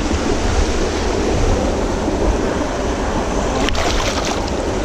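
Steady rush of water with wind on the microphone, and about three and a half seconds in a sharp splash as a barramundi is grabbed by the jaw and lifted out of the water.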